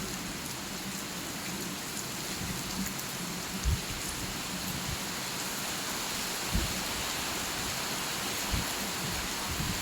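Steady rain falling on a surface, an even hiss, with three brief low thumps.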